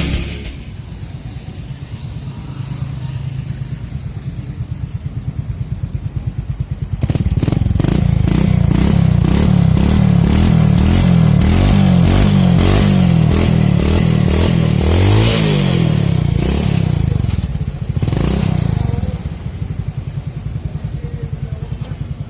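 Suzuki Viva 125's single-cylinder engine idling with a steady pulse through an aftermarket stainless-steel exhaust. About seven seconds in it is revved up and down repeatedly for some ten seconds, much louder, then settles back to idle.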